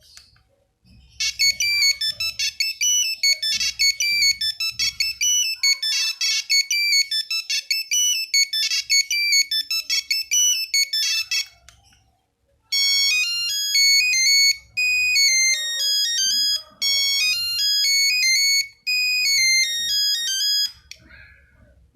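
Nokia 3310 ringtones playing as single electronic beeping notes, one note at a time. First comes a fast tune of short notes lasting about ten seconds. After a brief pause a second, slower tune with longer held notes plays for about eight seconds and stops about a second before the end.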